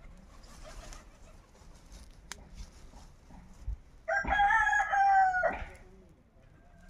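A rooster crowing once, about four seconds in: a single call of about a second and a half.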